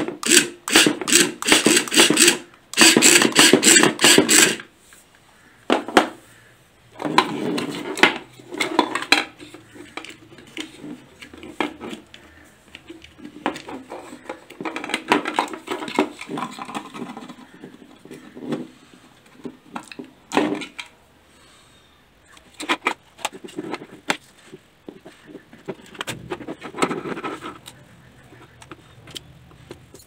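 Small electric gear motors of a toy RC car whirring in rapid pulsing bursts for the first few seconds as the remote is worked. Then plastic parts click, knock and rattle as the opened car body and chassis are handled.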